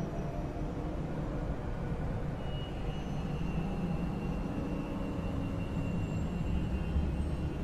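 Steady low rumbling drone, with a faint thin high tone coming in about two and a half seconds in.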